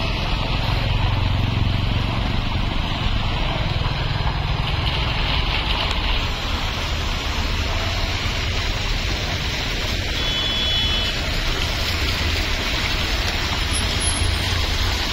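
Steady street noise of vehicles moving on a wet, waterlogged road, a constant hiss with a low rumble underneath.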